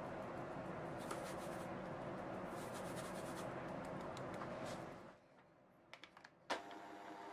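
Scratchy rustling of flour being sifted through a sieve into the bowl, which stops about five seconds in. A few light clicks follow, then a sharp click as an electric hand mixer switches on near the end and starts running steadily at low speed.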